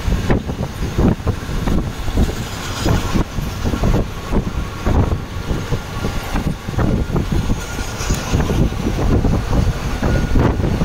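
Trains running on rails, heard from a moving train: a steady rumble of wheels on track with frequent irregular clattering knocks, as a freight train of open wagons runs alongside on the next track.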